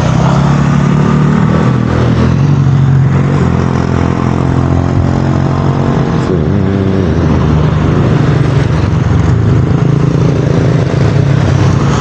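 Road traffic passing close on a bend: motorcycle and car engines running with a continuous low drone, the pitch shifting as vehicles come through.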